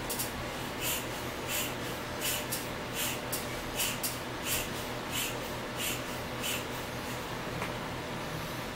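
Air pump pushing air through a hose into an exercise ball: a rhythmic series of short hissing puffs, about three every two seconds, one per pump stroke, stopping a couple of seconds before the end.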